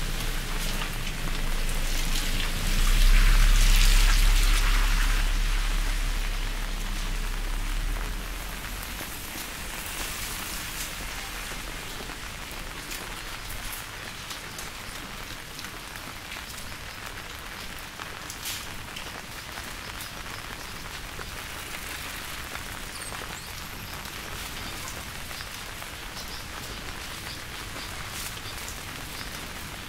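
Steady rain falling, with scattered sharper drips. In the first several seconds a deep rumble and a rising hiss swell to a peak a few seconds in, then fade away.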